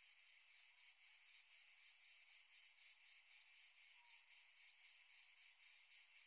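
Near silence, with only a faint steady high-pitched hiss.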